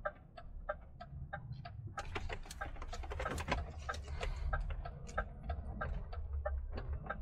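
Inside a DAF XF truck cab turning at a junction: the turn-signal indicator ticks steadily, about three clicks a second, over the low run of the diesel engine.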